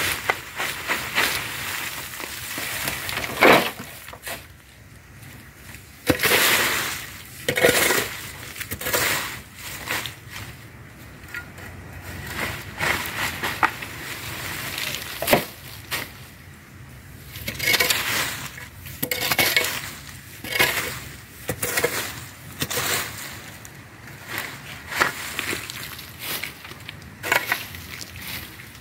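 Dry cut weeds and dead leaves being scraped and pushed across bare dirt with a long-handled tool, giving irregular scraping, rustling strokes about every second or two.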